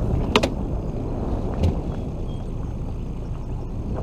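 Steady low rumble on a small fishing boat, with a sharp double knock about half a second in and another knock at about a second and a half, as rods and gear are handled.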